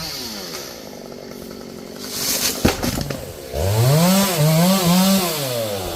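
Chainsaw cutting a kapok tree, running low at first, then revving hard about three and a half seconds in, its pitch dipping and recovering a few times under load before it falls away near the end.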